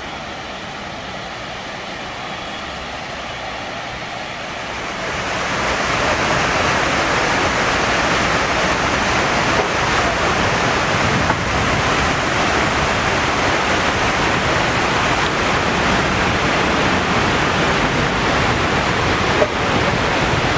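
Water falling down the walls of the 9/11 Memorial reflecting pool, a steady even rush that grows much louder about five seconds in.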